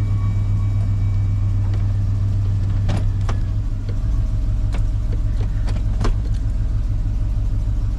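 2004 Chevy Silverado 2500 HD pickup's engine idling while the shifter is worked through the gears on a newly installed shift cable. There are sharp clicks about three seconds in and again near six seconds. The low engine hum changes pitch about four seconds in.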